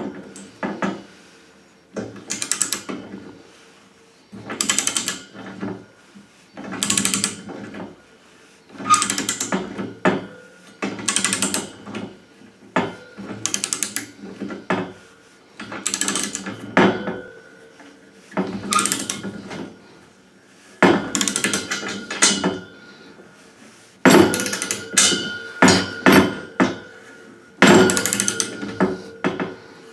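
Ratchet handle clicking in short bursts about every one to two seconds as a multi-size radiator key screws a taped valve tail into a chrome towel radiator's threaded port, the strokes coming closer together near the end.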